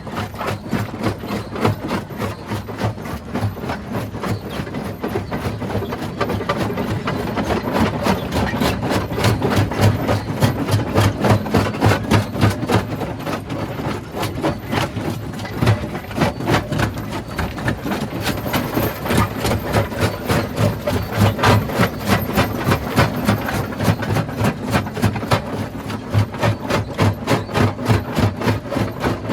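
Rock crushing machinery running, with a fast, even pounding of several knocks a second over a low engine drone.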